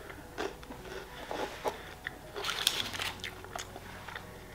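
Crunching and chewing of a chocolate-coated wafer candy, quiet and crackly, with a louder cluster of crunches about two and a half seconds in.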